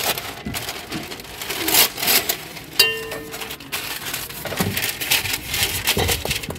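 Baking paper rustling and crinkling as it is cut from a roll with a knife and pressed into a metal pan, full of sharp crackles. A brief pitched ring sounds about three seconds in.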